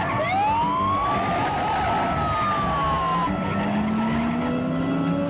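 Police patrol car's tyres squealing for about three seconds, the squeal rising quickly in pitch, then sagging before it cuts off. Then the engine revs up steadily as the car accelerates.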